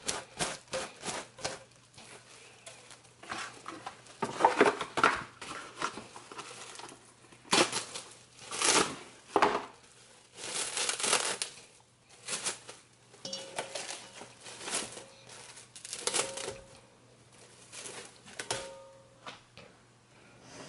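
Plastic cling wrap crinkling in irregular bursts as it is stretched and pressed over a metal mixing bowl.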